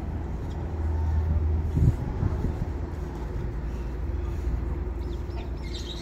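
A steady low machine hum, with a brief thump about two seconds in.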